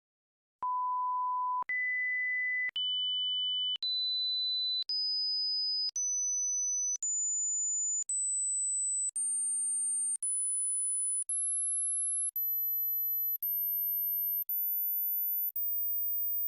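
Hearing-test sine tones: about fifteen pure, steady beeps, each about a second long with a short break between, stepping up in pitch one after another from a mid-range beep to a very high, thin whine at the top of human hearing. They begin about half a second in.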